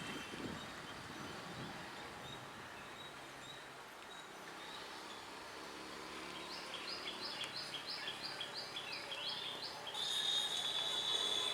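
Quiet outdoor ambience, then a bird calling in a quick series of falling chirps, about three a second. About ten seconds in, a steady high-pitched whine starts and is the loudest sound.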